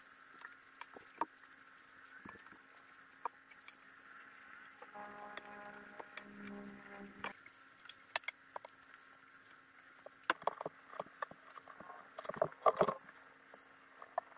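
Small scratchy rubbing and light clicks and knocks of a rag and then a brush working finish onto a wooden table, busiest in the last few seconds, over a faint steady hum. A pitched tone sounds for about two seconds near the middle.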